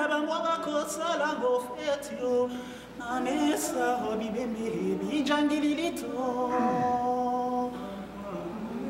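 A voice singing unaccompanied: a melody of long held notes that waver in pitch, with words between them.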